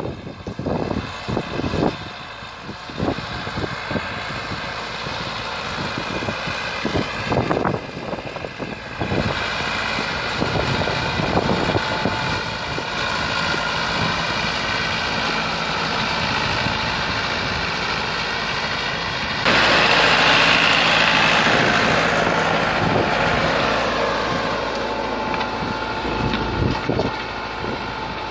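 Massey Ferguson 385 tractor's four-cylinder diesel engine running steadily under load while it pulls an 18-disc harrow through the soil. There are irregular thumps in the first few seconds, and the engine gets suddenly louder about two-thirds of the way through.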